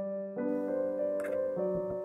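Background piano music, single notes and chords changing about every half second.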